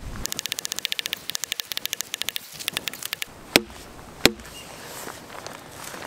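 Two sharp blows on the pommel of a folding knife, driving its blade into a log, about three and a half and four and a quarter seconds in. Before them, a fast run of high, dry clicks lasts about three seconds.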